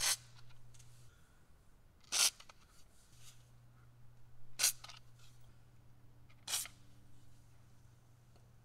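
Aerosol can of penetrating oil sprayed in four short hisses about two seconds apart, soaking rusted brake bolts to loosen them.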